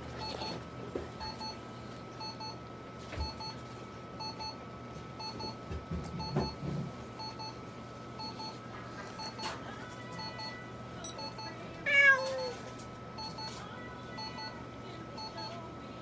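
A cat meows once about twelve seconds in, a single loud cry falling in pitch. Underneath, a Super Lizer light-therapy unit in use gives short double beeps about once a second over a faint steady whine.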